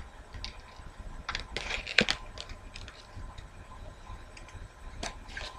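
Small clicks and taps of cheap metal fashion rings and their packaging being handled as the last ring of the set is taken off; a cluster of clicks a little over a second in, the sharpest about two seconds in, and a couple more near the end.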